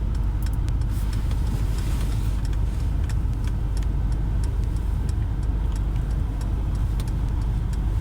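Steady low road rumble inside the cabin of a moving 2020 Mercedes-Benz GLS 580 SUV, with faint scattered ticks.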